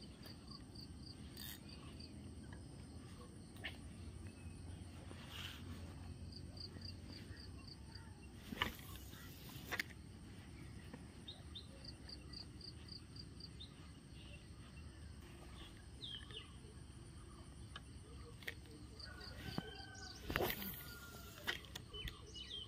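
Quiet outdoor ambience over a low steady rumble. An insect gives a high, short trill of rapid pulses three times, about six seconds apart, and a few brief rustling sounds break in around the middle and near the end.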